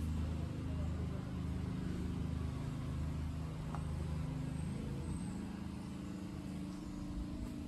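Steady low engine hum, like a motor vehicle running close by, whose pitch shifts slightly about halfway through.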